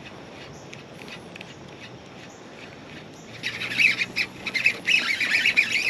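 Steady rush of river water, then about three seconds in a fishing reel's drag starts buzzing in fast clicking surges as a hooked smallmouth bass pulls line.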